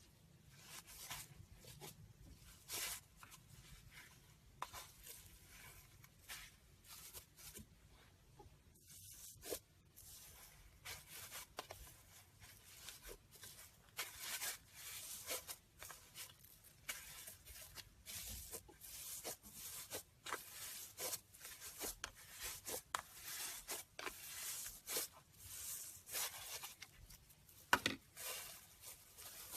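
Slime being worked: a run of irregular soft sticky crackles and snaps, sparser at first and busier after about ten seconds.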